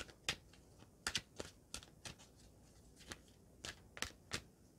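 A deck of oracle cards being shuffled by hand: a run of short, irregular card snaps, about three a second.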